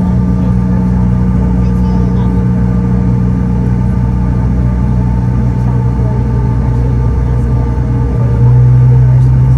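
Cabin noise of a Bombardier CRJ-900's rear-mounted GE CF34-8C5 turbofans during the takeoff roll: a loud, steady drone made of several low hums. Near the end a deep hum swells and the noise gets louder.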